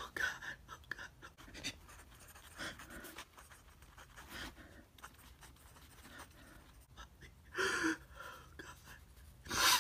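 Pen writing on lined notebook paper: faint, irregular scratching strokes, with two louder brief sounds near the end.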